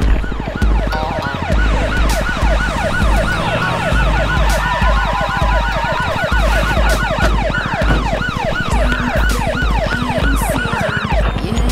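Police car sirens yelping: a fast rising-and-falling wail that repeats several times a second. Under it runs a heavy, low pulsing beat about twice a second.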